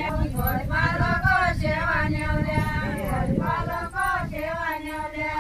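A group of mostly women's voices singing a deuda folk song together, a melodic line that rises and falls, with no instruments.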